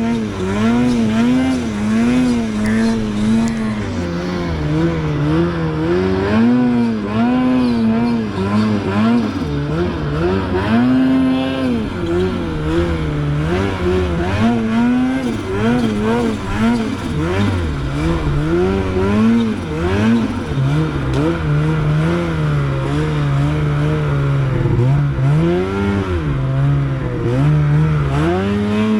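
Snowmobile engine being ridden hard, its pitch rising and falling over and over as the throttle is worked.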